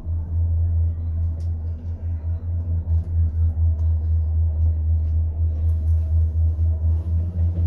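Gondola cable car cabin in motion: a steady low rumble and hum inside the cabin, pulsing slightly, with a faint steady higher tone over it.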